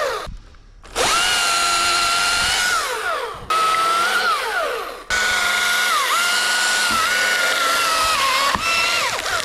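Chainsaw running at high revs in several runs, each ending with the pitch falling away as the throttle is released. Once, midway, the note dips briefly as the chain bites.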